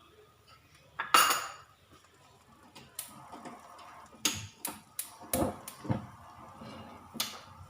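A metal cooking utensil knocking and clinking against a frying pan: a string of about eight sharp knocks, the loudest about a second in.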